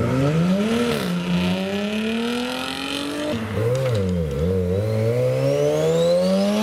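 A Jaguar F-Type coupé accelerating past, its engine pitch rising. About halfway through, a Mazda RX-7 (FD) with a 13B twin-turbo rotary engine takes over: it is blipped a couple of times, then accelerates away with its pitch climbing steadily.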